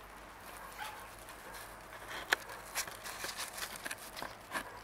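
Light footsteps and crackling on dry, littered ground close to the microphone: a scatter of soft clicks, with one sharper click about two and a half seconds in.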